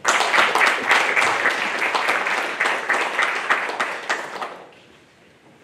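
Applause: many people clapping at once, starting suddenly and dying away about four and a half seconds in.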